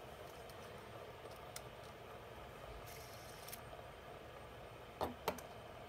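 Pokeball-shaped fidget spinner spinning on its bearing, a faint steady whir. A few light clicks come through, two sharper ones about five seconds in.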